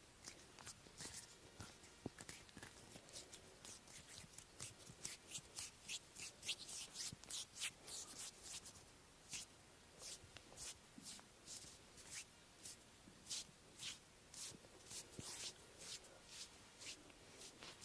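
Hands rubbing and stroking bare skin during a massage: a long run of quick, faint, swishing strokes, about two to three a second, most closely packed in the middle.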